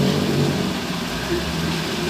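Diesel engine of heavy earth-moving machinery running, its note easing off just after the start and then holding steady.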